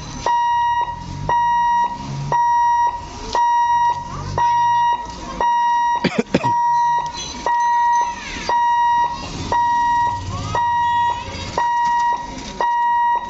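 Railway level-crossing warning hooter beeping a steady high tone, switched on and off about once a second, the gate's signal that a train is coming. About six seconds in, a short sharp sound cuts across the beeping.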